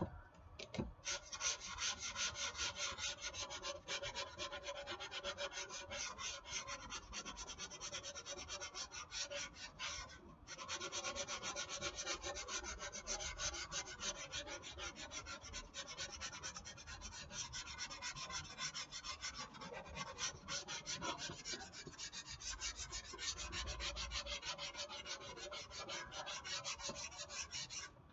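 220-grit sandpaper rubbed by hand in quick, light back-and-forth strokes over dried wall spackle filled into a foam model-airplane wing, knocking down the high spots. It pauses briefly twice.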